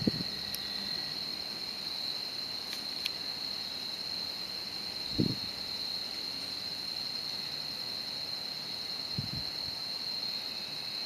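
A steady, high-pitched insect trill, like crickets, runs throughout over a faint hiss. Soft low thumps come about five seconds in and again near nine seconds.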